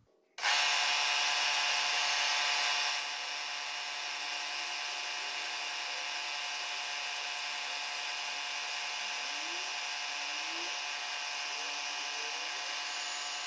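Milling machine spindle running with an end mill cutting brass, as the part is hand-turned on a rotary table to round off its end. It is a steady whine made of many tones. It starts suddenly about half a second in and is a little louder for the first few seconds.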